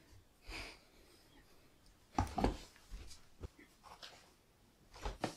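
Quiet movement sounds of a person getting up and moving about a small room: scattered soft knocks and rustles, with a cluster of thuds a little over two seconds in and another near the end.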